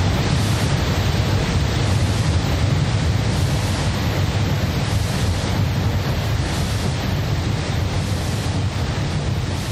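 Steady, dense noise with a heavy low rumble and no distinct events or tones, easing off slightly toward the end.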